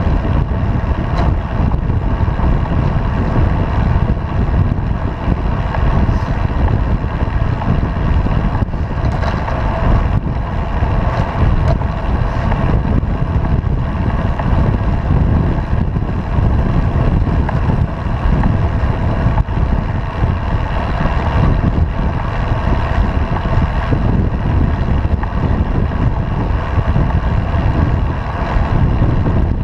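Steady wind rush and road rumble on a bicycle-mounted action camera's microphone while riding on asphalt, with a few faint knocks from bumps in the road.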